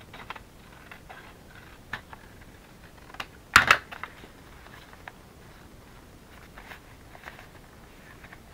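Kraft paper from a brown paper bag being handled and smoothed flat on a journal page: scattered soft crinkles and light taps, with one loud rustle about three and a half seconds in.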